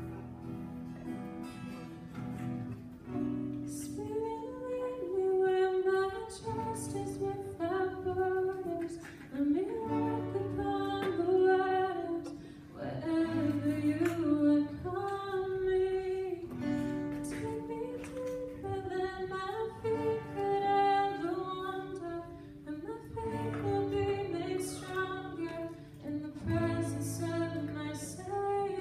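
A woman singing a worship song to a strummed acoustic guitar, amplified over the hall's PA.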